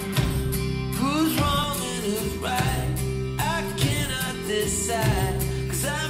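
A song with singing over guitar, played back through a pair of Canton Plus XL bookshelf speakers and recorded by a microphone in the room; the voice comes in about a second in.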